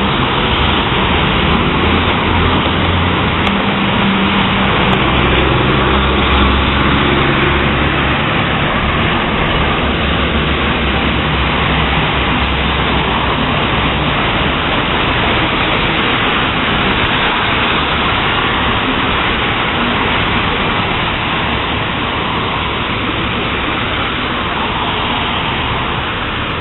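Heavy thunderstorm rain pouring steadily, with a low rumble through roughly the first half.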